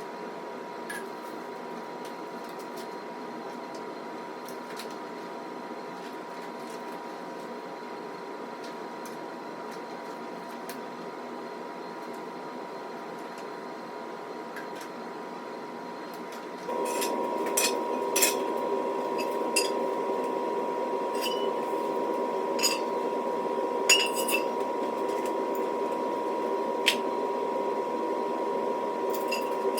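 Steel squat-rack parts and bolt hardware clinking and tapping now and then during assembly, over a steady hum with a constant tone. The hum gets louder about two-thirds of the way through, and the clinks come more often after that.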